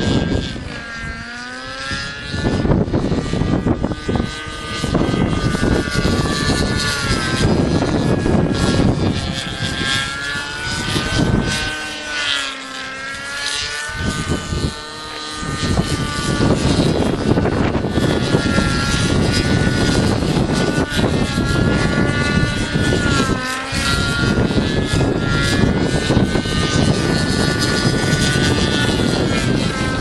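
Raptor 50 SE nitro RC helicopter flying overhead. Its Thunder Tiger .53 two-stroke glow engine and rotors whine, rising and falling in pitch as it manoeuvres. Heavy wind buffets the microphone, easing briefly about a second in and again about halfway through.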